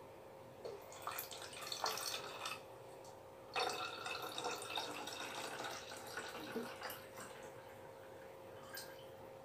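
A watery homemade sanitizer mixture poured from a small steel bowl into a plastic bottle, trickling and dripping in two spells, the second starting about three and a half seconds in, with a few small ticks of the bowl against the bottle.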